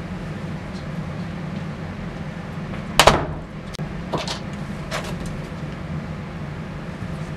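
A door shutting with one loud thump about three seconds in, followed by a few lighter clicks, over a steady low hum.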